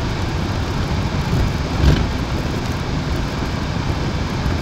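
Car cabin noise while driving slowly over a cobblestone street: a steady low rumble of engine and tyres on the stones, with a single thump about two seconds in.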